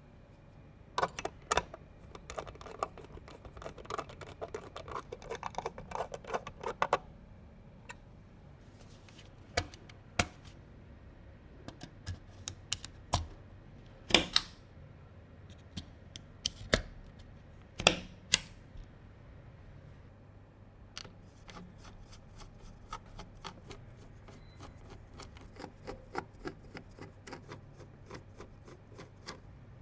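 Computer parts being handled and fitted during a PC build: a busy stretch of small plastic and metal clicks and taps, then a few sharper single clicks, then a run of light ticks near the end.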